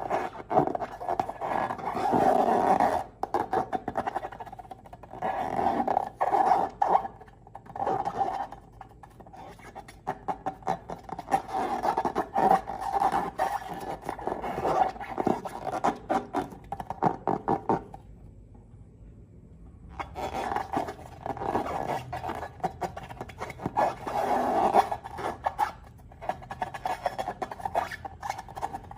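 Close-miked squishing and crackling of slime being handled, with many quick little pops and rubbing sounds, stopping for about two seconds roughly two-thirds of the way through.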